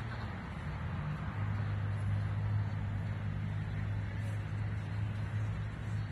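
A vehicle engine running with a steady low hum that grows louder about a second in, over a haze of outdoor traffic noise.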